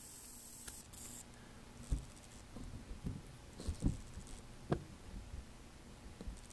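Faint handling bumps and scuffs as a camera is picked up and moved back, with a few soft thumps about two, four and five seconds in.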